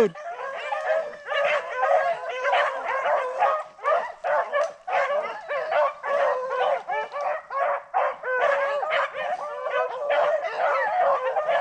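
A pack of rabbit-hunting dogs in full cry on a rabbit's track, many overlapping barks and bawls crowding one another without a break.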